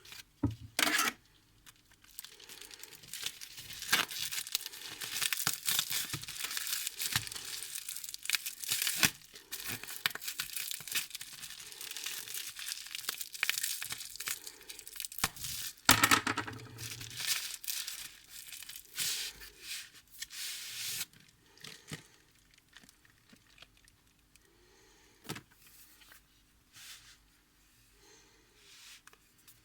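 Mail packaging being torn open and crinkled: a long run of ripping and rustling with a couple of sharp louder rips, thinning out to scattered light rustles near the end.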